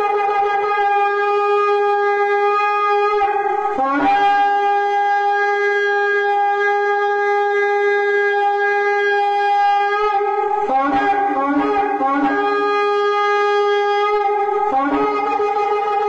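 Shofar blasts: a long, steady, brassy horn note that several times dips briefly to a lower note and jumps back up. The lower note comes once about 4 seconds in, several times in quick alternation around 11 to 12 seconds, and once more near 15 seconds. It is the trumpet call announcing the rapture.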